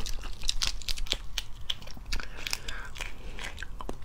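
Shell of a raw botan shrimp being pulled apart by hand close to the microphone: an irregular run of small crackles and snaps.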